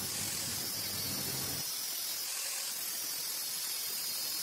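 Angle grinder running with an abrasive disc against a steel knife blank cut from an engine connecting rod, a steady hissing grind.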